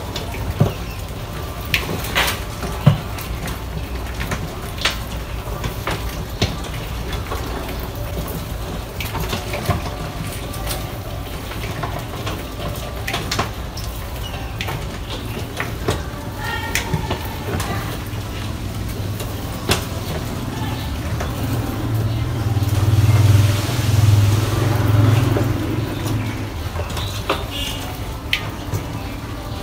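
A swarm of rats scrambling over a glass tank and a tiled floor: scattered clicks and taps of claws and bodies, over a steady low hum, with a louder rushing swell a little before the end.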